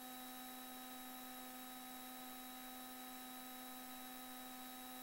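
Faint, steady electrical hum: a few fixed tones over a light hiss.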